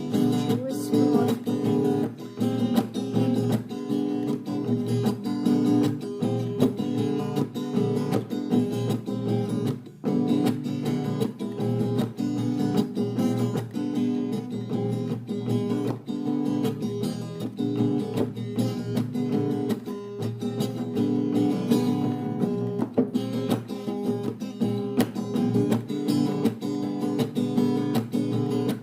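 Instrumental passage of a song: acoustic guitar strummed in a steady rhythm, with a brief break about ten seconds in.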